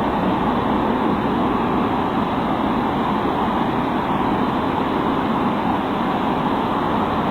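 Steady outdoor background rush like distant traffic, picked up by a security camera's microphone, with a muffled, narrow sound and no distinct events.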